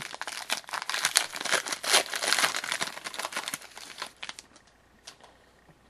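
A hockey card pack wrapper being torn open and crinkled, a dense crackle lasting about four seconds that thins out to a few faint crackles near the end.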